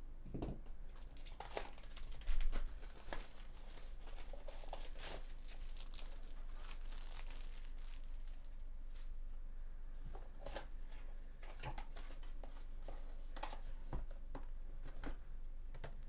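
Plastic shrink wrap crinkling and tearing as a sealed hobby box of baseball cards is opened, with irregular crackles and a louder rip about two seconds in. Cardboard rubs and taps as the box is handled and the inner boxes are slid out.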